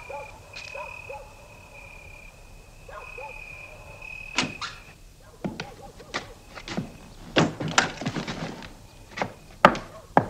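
Apartment door opened and someone stepping in: a series of sharp clicks, knocks and thuds from about four seconds in, with a clatter just before eight seconds and the loudest knocks near the end. Before that, a faint high tone keeps breaking off and starting again.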